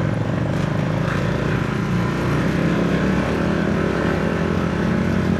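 Motorcycle engine running steadily while the bike is ridden, a low even drone.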